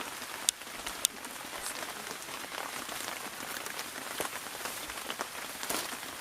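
Heavy rain falling steadily as an even hiss, with two sharp taps about half a second and a second in.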